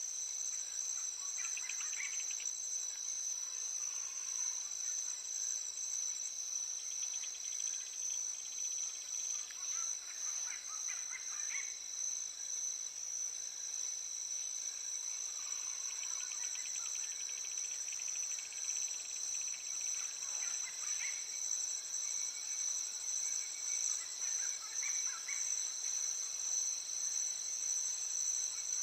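Nature-sounds background track: a steady high-pitched insect trill, with short bird song phrases every few seconds.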